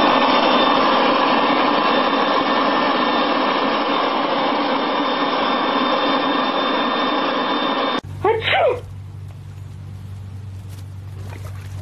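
Loud, steady whir of a small motor for about eight seconds, cutting off suddenly. It is followed by a short high squeal that falls in pitch, then a low steady hum.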